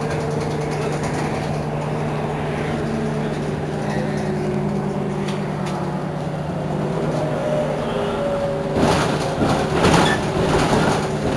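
Irisbus Citelis city bus's diesel engine idling at a stop: a steady low hum with a constant pitch. From about nine seconds in, louder uneven street noise rises over it.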